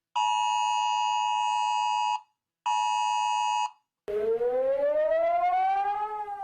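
Emergency alert alarm sounds: two steady buzzing alert tones, the first about two seconds long and the second about one second, with a short break between them. Then a siren wail rises slowly in pitch and starts to fall near the end.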